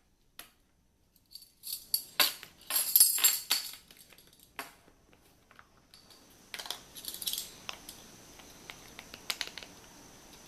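Metal measuring spoons jingling and clinking, with sharp clicks and taps of kitchen utensils. There are clusters of jingles in the first few seconds, then lighter, scattered clicks over a faint steady hiss.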